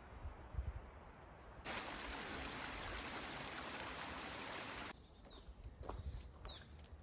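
Rushing water, such as a stream, for about three seconds, starting and stopping abruptly. It is followed by a bird calling with short, repeated falling whistles. A low rumble comes before the water.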